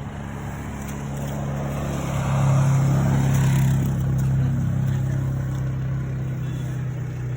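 An engine running steadily, a low hum that swells about two seconds in and eases off after about four seconds.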